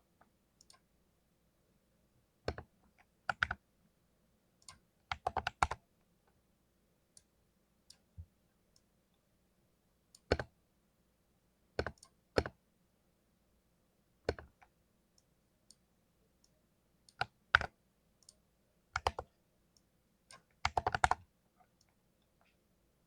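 Keycaps on a mechanical keyboard clacking: single keystrokes and pairs spaced a second or more apart, with two short quick runs of several keystrokes, about five seconds in and again near the end.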